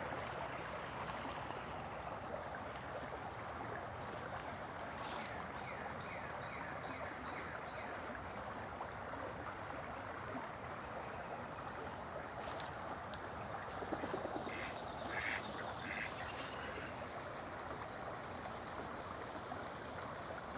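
Steady rush of running water, with a short cluster of animal calls about two thirds of the way through and a few faint high chirps.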